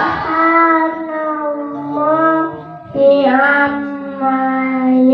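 A toddler reciting the Quran in the melodic qari style into a microphone: two drawn-out chanted phrases with a short breath between them, the second ending on one long held note.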